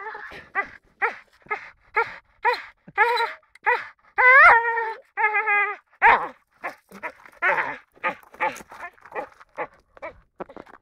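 American Staffordshire terrier making a rapid string of short pitched cries, about two a second, with a longer wavering cry about four seconds in and breathier calls in the second half.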